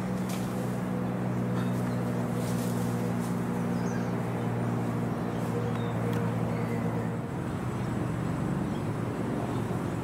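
Steady low mechanical hum of a running motor, several low tones held together, which breaks up and turns rougher about seven seconds in.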